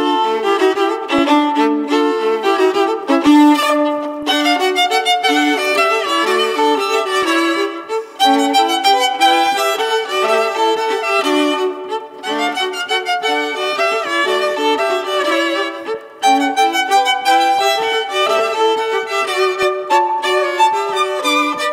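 Solo violin playing a joropo in rapid runs of short notes, with brief breaks between phrases about every four seconds.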